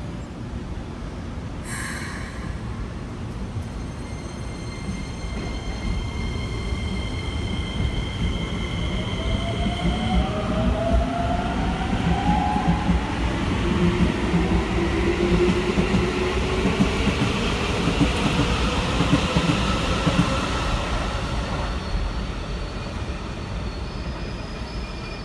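Keikyu New 1000 series (1800 subseries) electric train pulling out and accelerating. Its Toyo Denki IGBT VVVF inverter gives a whine that rises in pitch, while motor and wheel noise swells and then fades as the cars go by. A sharp knock about two seconds in.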